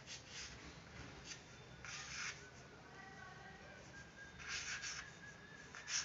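Chalk writing on a small chalkboard: a few short, faint scratchy strokes.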